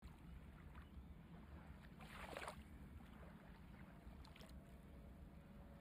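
Faint, steady low hum of room noise. About two seconds in there is a brief crinkling rustle, with fainter ones near four and a half seconds, as a plastic bubble mailer is handled.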